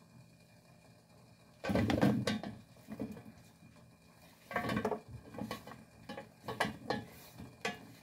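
Raw potato slices tipped off a wooden chopping board and clattering into a stainless steel steamer pot in several separate bursts, the loudest first.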